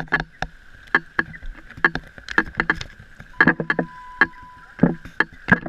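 Shallow sea water sloshing and splashing close to the microphone, with irregular sharp knocks throughout and a brief faint steady tone around the middle.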